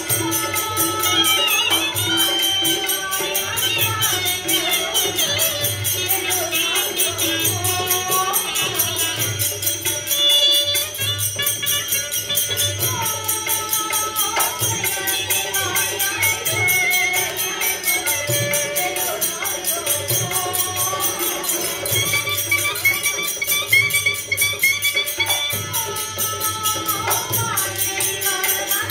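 Live Rajasthani folk music for the Terah Taali dance: the dancers strike the thirteen small manjira cymbals tied to their bodies in a fast, steady jingling rhythm, over a dholak drum and singing.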